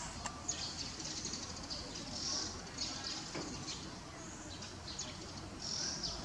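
High-pitched chirping of small birds, several short irregular chirps a second over a faint steady outdoor hum.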